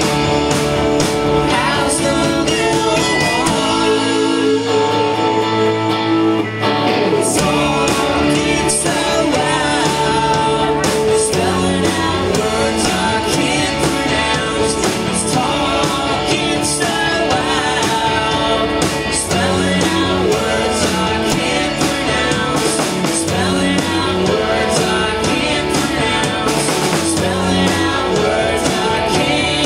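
Live rock band playing: electric guitars, bass and drum kit, with singing. About four seconds in, the bass drops out for a few seconds before the full band comes back in.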